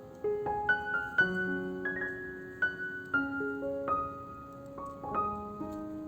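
Background music: a gentle piano melody of single notes, each struck and left to ring.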